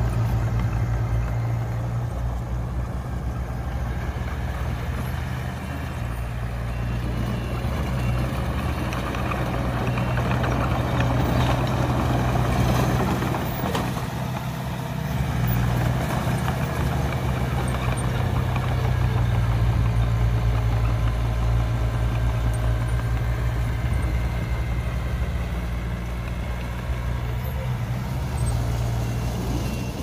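Heavy-equipment diesel engine running steadily with a low hum, swelling a little louder in the middle and again in the second half.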